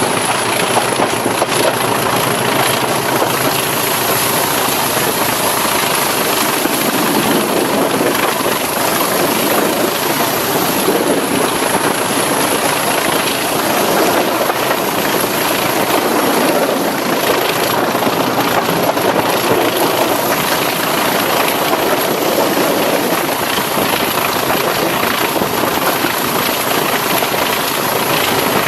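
BR Class 20 diesel locomotive's English Electric 8SVT V8 engine running loud and steady, with the throbbing 'chopper' beat and a thin high whistle.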